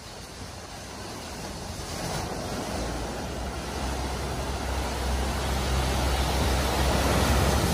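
Jaguar F-Pace SUV driving through a deep flooded ford: water rushes and splashes off its bow wave, growing steadily louder as it comes closer. A low engine drone joins in about three seconds in.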